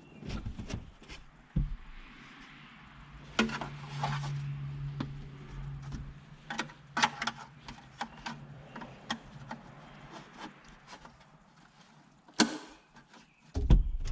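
Plastic dash trim parts being handled and fitted: scattered sharp clicks, knocks and rubbing, with two louder knocks near the end. A low steady hum runs for a couple of seconds about three seconds in.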